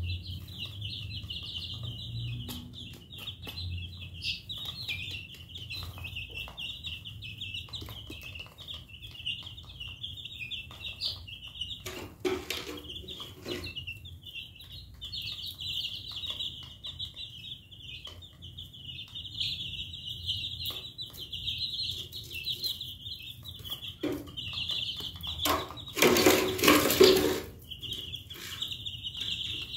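A crowd of young chickens (chicks) peeping continuously in a dense, high-pitched chorus. A loud, noisy burst about twelve seconds in briefly covers it, and a longer, louder one of about a second and a half comes near the end.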